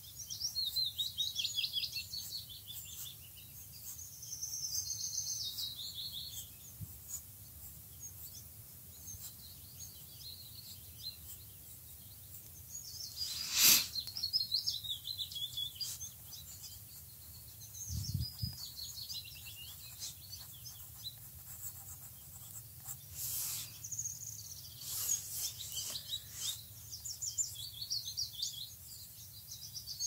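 Songbirds singing in woodland, with repeated quick trilled phrases coming and going. About halfway through there is one sharp click, the loudest sound, and a few seconds later a short low thump.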